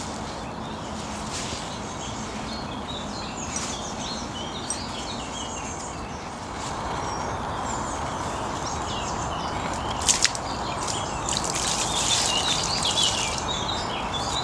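Songbirds chirping and singing over a steady outdoor hiss, with a sharp click about ten seconds in and a couple of seconds of louder rushing hiss near the end.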